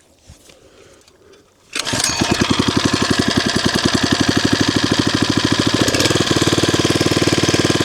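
Small gas-engine water pump starting about two seconds in on a second attempt, then running with a fast, even beat that settles into a steadier note about six seconds in.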